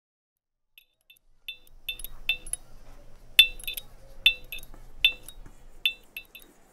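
Neon sign flickering on: a sound effect of irregular, sharp electrical clicks and tinks over a faint low hum. A few clicks come about a second in, then they grow denser, with the loudest ones in the middle, and stop near the end.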